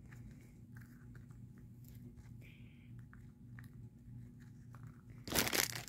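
Hands handling small plastic toy accessories close to the microphone: faint light clicks and rustles, then a short loud rustle near the end.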